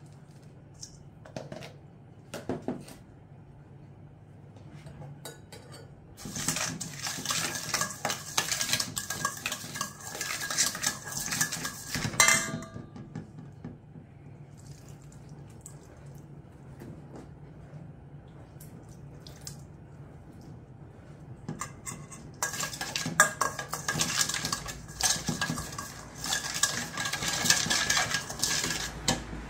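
Metal spoon stirring and scraping a thick chili-oil sauce around a stainless steel mixing bowl: two long bouts of rapid clinking with a faint ringing from the bowl, and a quieter spell of scattered taps between them.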